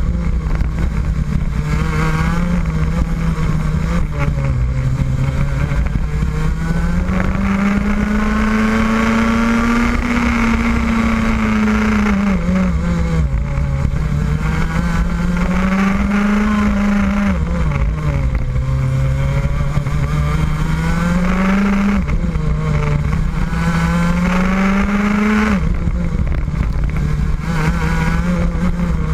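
Rotax Max 125cc single-cylinder two-stroke kart engine heard onboard at race pace. Its pitch climbs steadily on the straights and drops away several times, sharply near the end, as the driver lifts off for corners.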